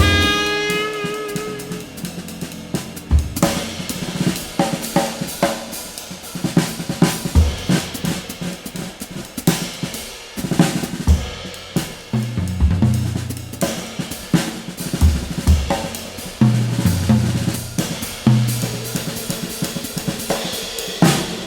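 Background music: a jazz drum kit playing snare, bass drum, cymbals and hi-hat, with short bass notes and a held horn note fading at the start.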